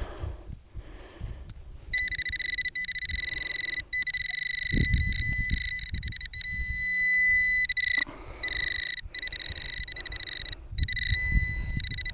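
Metal detecting signal tone: a steady high-pitched electronic tone sounding over a target in a dug hole, starting about two seconds in and broken by two short gaps. Low handling thuds underneath.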